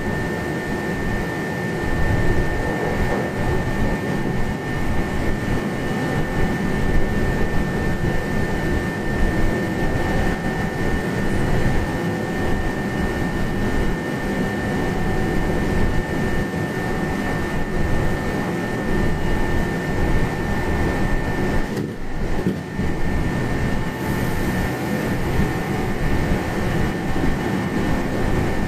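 Meitetsu 1200-series electric train running at high speed, about 120 km/h, heard inside a passenger car: a steady rumble of wheels on rail and running gear, with a thin high whine through most of it. The sound briefly dips about 22 seconds in.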